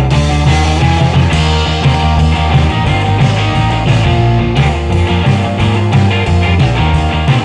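Background music: a rock track with guitar and a steady bass line.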